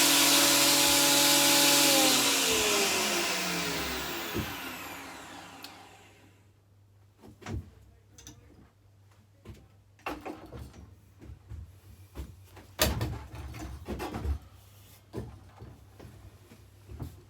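Electric woodworking power tool running at full speed, then switched off about two seconds in, its motor spinning down with falling pitch until it stops a few seconds later. After that come scattered knocks and clicks of wood and tool handling.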